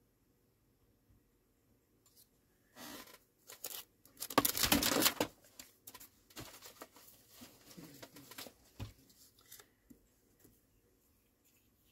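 Paper rustling and crinkling as planner pages, paper pieces and old book pages are handled, in a few bursts with the loudest about four to five seconds in, then lighter taps and rustles.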